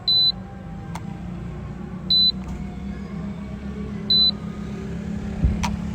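Drone remote controller's warning alarm: a short, high electronic beep repeating about every two seconds, over a steady low hum.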